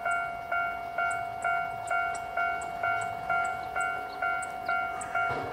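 Railway level-crossing warning bell ringing steadily, about two strokes a second, signalling an approaching train.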